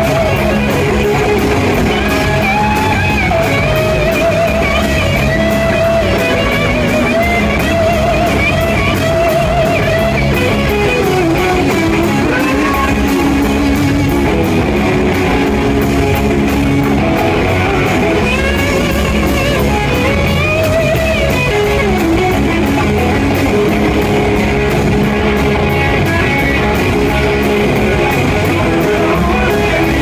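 Live rock band playing loud: electric guitars and a drum kit, with a melodic line that bends up and down on top.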